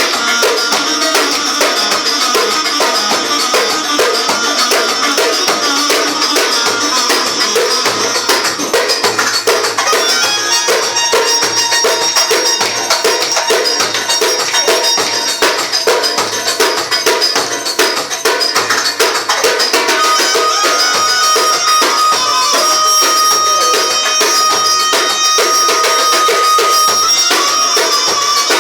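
Turkish çiftetelli dance music with a steady, fast percussion beat under a melody instrument; about two-thirds of the way in, the melody holds one long high note for several seconds.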